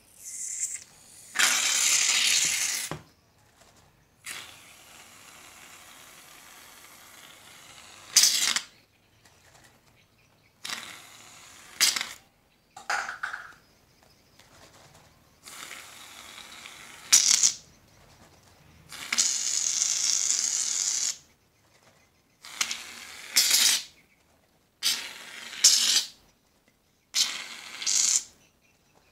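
Aerosol can of shaving foam spraying in about a dozen bursts of hiss, most under a second, the longest about two seconds, with short quiet gaps between.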